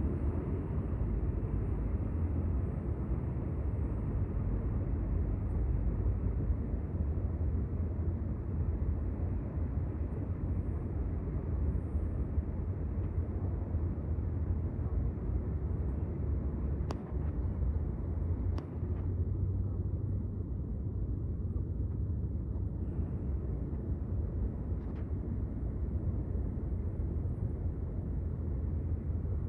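Steady low outdoor rumble, strongest in the deep range, with two sharp clicks a little past halfway.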